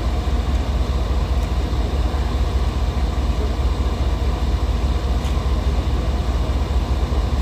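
An engine running steadily, a deep fast throb that holds the same speed without revving up or down.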